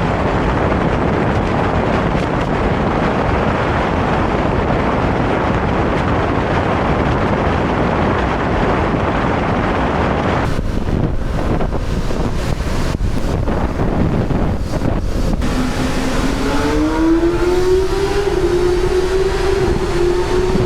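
Wind rushing over the microphone of a riding motorcycle. About three-quarters of the way in, the engine note rises steadily in pitch as the bike accelerates, then holds.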